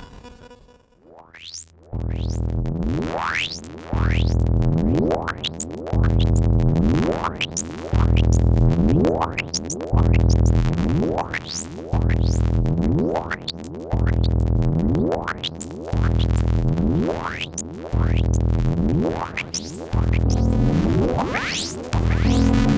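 Alesis Andromeda analog synthesizer playing a noisy audio-rate-modulation patch. After a brief dip near the start, it repeats rising pitch sweeps about once a second over a low bass pulse that comes and goes every two seconds.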